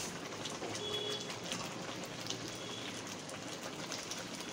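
Thick masala gravy bubbling and spitting in a steel kadai: a steady hiss dotted with many small pops.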